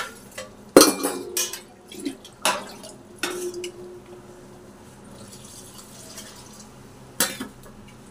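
Steel utensils clinking against a stainless steel pressure cooker: several sharp metal knocks in the first few seconds, one ringing briefly. Then a faint steady hiss as water is poured from a steel lota into the hot masala, and one more clink near the end as a ladle goes in to stir.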